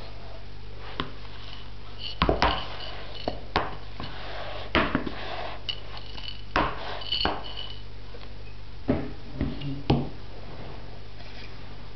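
Glass bowl being handled on a table: a scattered series of sharp knocks and clinks, several ringing briefly like struck glass, over a steady low hum.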